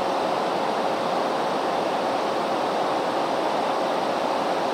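Steady synthetic rushing noise, like a waterfall, with a faint steady hum tone underneath. It is presented as the 'sound' of Uranus's moon Margaret.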